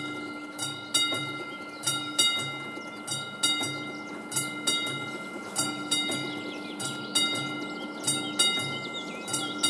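Mechanical bell of an AŽD 71 level-crossing warning signal ringing, its hammer striking about once or twice a second in an uneven rhythm, often in quick pairs, each strike ringing on. The crossing is activated, warning of an approaching train.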